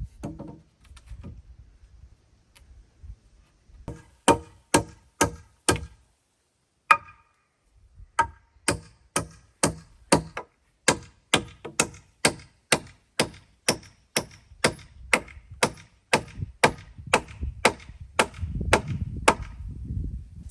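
An axe chopping wood in quick, even strokes, about two a second, pausing briefly after the first few blows and then keeping on steadily to near the end.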